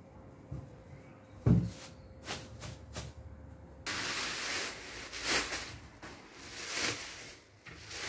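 Plastic wrapping crinkling and rustling loudly in waves as it is pulled open by hand, starting suddenly about four seconds in. Before that, a dull thump about a second and a half in, with faint handling of the wrapped piece.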